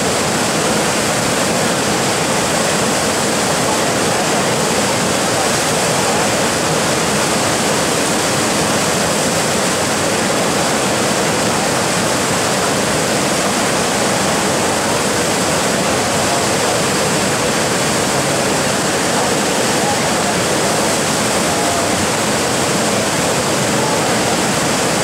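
Steady rush of churning whitewater in a river rapid, a constant full roar of breaking water that does not let up.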